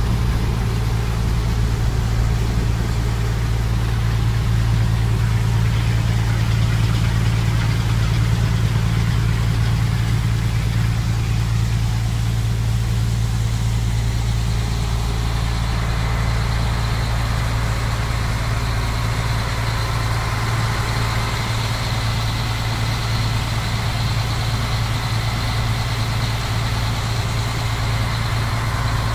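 River ferry's engine running steadily under way, a deep constant drone, with a rush of water and wind over it; a faint high whine joins about halfway through.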